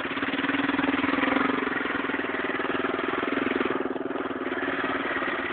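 Vehicle engine running steadily, heard from inside a dog box carried on the vehicle; it eases briefly about four seconds in.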